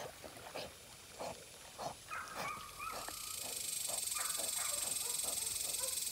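A retriever swimming with a training bumper in its mouth, puffing and snorting in short irregular breaths. About halfway through a steady high-pitched buzz comes in and becomes the loudest sound.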